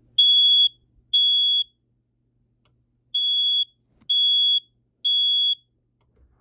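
First Alert smoke alarm sounding on test: loud, high-pitched beeps about half a second long. Two beeps come near the start, then after a short pause three more in an even run, the alarm's repeating three-beep evacuation pattern.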